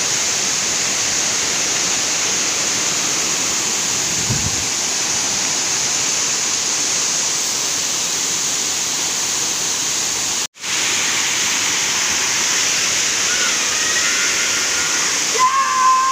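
Waterfall's steady, loud rush of heavy falling water, close by. It cuts out for an instant about ten and a half seconds in, and a few steady tones come in near the end.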